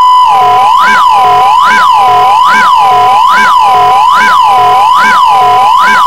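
Loud electronic siren-like tone: a steady high beep with a second tone wavering smoothly up and down over it, a little more than once a second.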